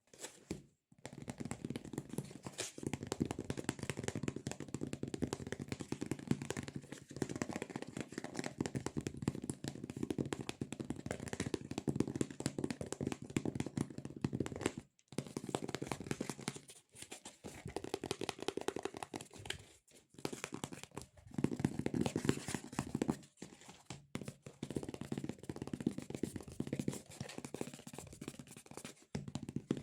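Fingers tapping and pressing on a sticky squishy toy, the tacky surface peeling off the skin in rapid, crackling sticky sounds, with a few brief pauses.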